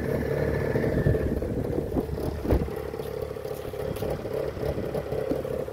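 1996 Arctic Cat Panther snowmobile's two-stroke engine idling steadily, running evenly now that its stuck carburetor needle valve has been freed. A single thump about halfway through.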